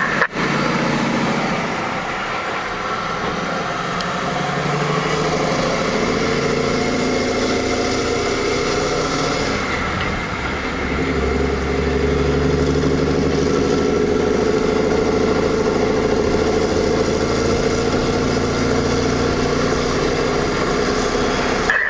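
Heavy haulage truck's diesel engine running under load, its note climbing, dropping back about halfway through, and climbing again as it pulls through the gears.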